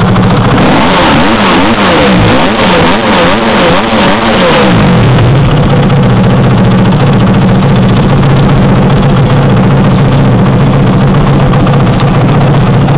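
Dirt bike engine running loud at idle, blipped through a quick series of revs for about four seconds, then settling back to a steady idle.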